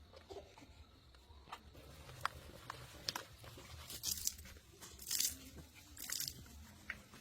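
A few sharp crunching and tearing sounds, the loudest about four, five and six seconds in.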